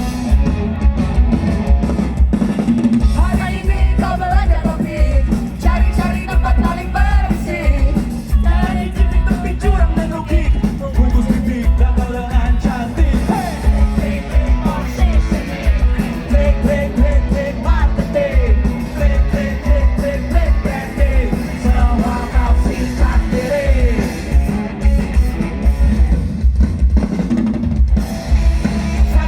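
Rock band playing with a singer: vocals over drums and guitar, with a heavy bass.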